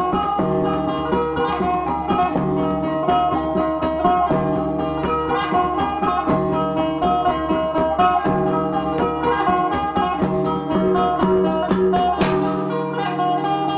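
Dayak sape, the carved Borneo boat lute, plucked in a quick repeating melodic pattern over a low figure that comes round about every two seconds. The lowest part drops out near the end.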